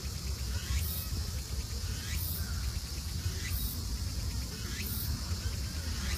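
Outdoor insect ambience: a steady high buzzing, with a short rising chirp repeated every second or so, over a steady low rumble.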